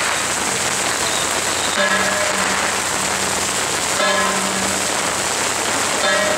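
Heavy rain falling steadily, a dense hiss. A faint pitched tone sounds over it three times, about two seconds apart.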